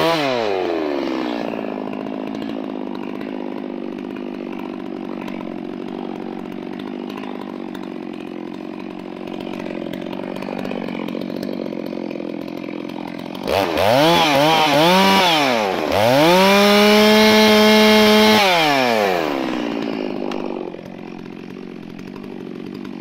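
Two-stroke chainsaw with a 36-inch bar falls from high revs to a steady idle as a cut through a log ends. About 13 seconds in it is blipped several times, held high for about two seconds, then drops back to idle.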